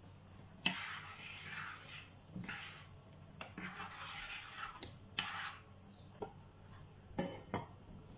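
A metal spoon stirring liquid in a stainless steel pot, swishing, with several sharp knocks against the pot. Near the end two quick clinks come as the lid is set on the pot.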